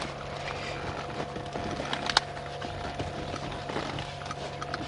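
Light clicks and taps of plastic seat-belt buckles being pushed down into a leather rear seat cushion, with one sharper click about two seconds in, over a steady background hum.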